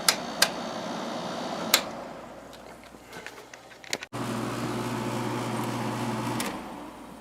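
Window air conditioner's rotary control knob clicks three times as it is turned, and the blower fan winds down as the unit is switched off. After a sudden break, a steady low hum runs for about two seconds and stops.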